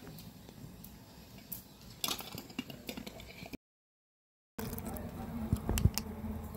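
Tea heating in a lidded pot on a portable gas stove, with a steady hiss and light clicks. It cuts to silence for about a second midway, then milk is poured from a can into the bubbling tea, with a few sharp knocks near the end.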